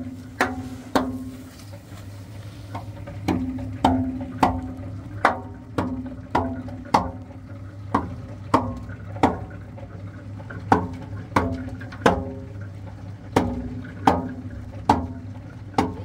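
Hammer blows on the steel drum of a concrete mixer, about one and a half a second, each ringing briefly. A steady low hum runs underneath, and the blows pause for about a second and a half near the start.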